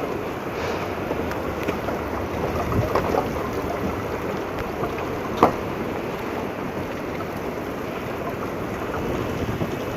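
Strong sandstorm wind blowing hard and buffeting the microphone in a steady rush, with one sharp knock about halfway through.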